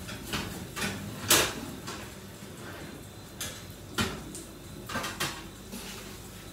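Metal baking tray and glass baking dishes clanking and scraping against the oven rack as they are slid out of the oven: a few sharp knocks, the loudest about a second in and more around four and five seconds in.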